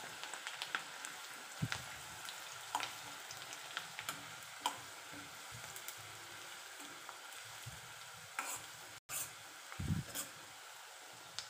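Chopped onions sizzling in hot oil in an iron kadhai while a steel spoon stirs them, scraping and tapping against the pan now and then.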